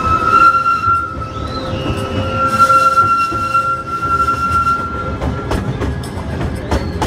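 Small theme-park train's wheels squealing as it rounds a curve in a tunnel: a steady high-pitched tone that stops about five seconds in. After that come several sharp clicks of the wheels over the rail joints.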